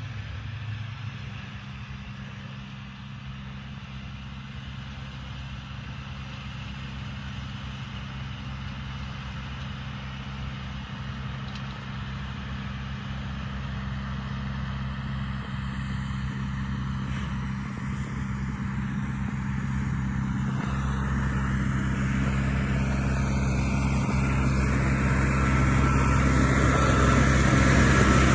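John Deere 6110 tractor pulling a hay baler, its diesel engine running at a steady pitch while it draws nearer and grows steadily louder, with more mechanical clatter near the end.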